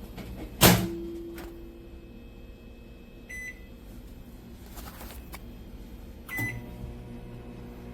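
Black+Decker EM720CB7 microwave oven: a single loud clack, then a short keypad beep, then a second beep after which the oven starts running with a steady low hum.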